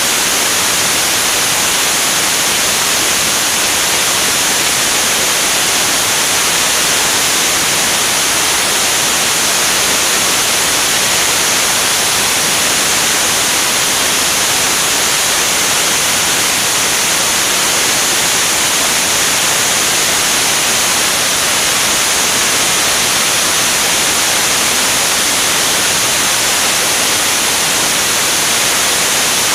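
Air rushing past a camera mounted on the wing of an L-39 Albatros jet in flight: a loud, steady hiss with no distinct engine tone standing out.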